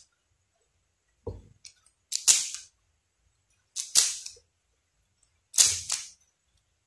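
QiYi MoFangGe 3x3 speedcube being turned by hand: four short bursts of clicking plastic layer turns, with silence between.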